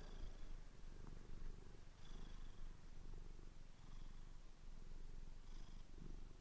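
Domestic cat purring softly, a low rumble that swells and eases with each breath, about every two seconds.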